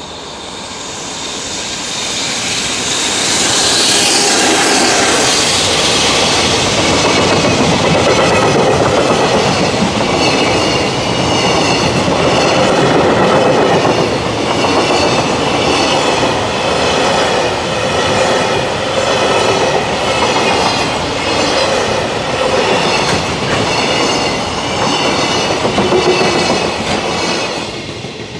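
A freight train with an electric locomotive approaches and passes at speed. It is followed by a long string of container wagons whose wheels clickety-clack evenly over the rail joints. The noise drops away suddenly near the end as the last wagon goes by.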